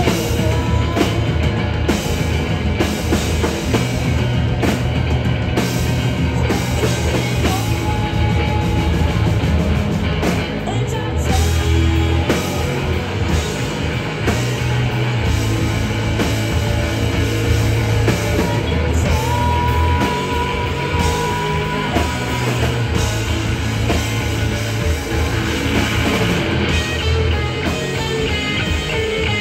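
A rock band playing live with a drum kit and guitars, loud and continuous.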